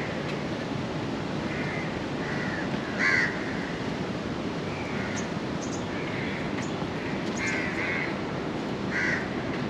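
A bird calling over and over in short calls, the loudest about three seconds in and another near the end, over a steady background din.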